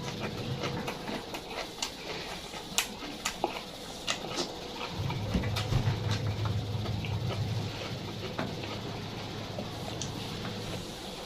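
Close-miked eating: chewing with many short, sharp crunches and wet mouth clicks.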